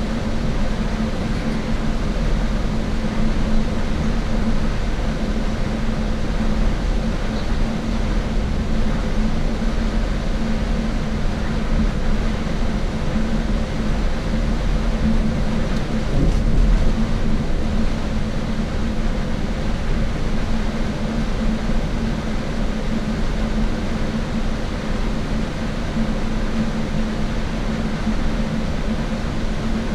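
Shuttle bus cruising at a steady speed: an even drone of engine and road noise with a constant low hum, briefly swelling about halfway through.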